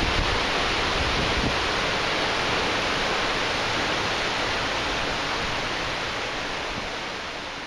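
Steady rush of a shallow creek flowing over sandstone ledges, with some wind rumble on the microphone in the first second or so, fading out gradually near the end.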